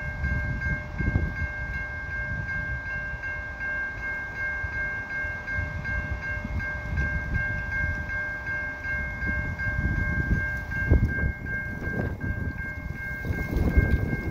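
Railway level-crossing warning bell ringing in quick, even repeated strokes, warning of an approaching train. A low rumble runs underneath.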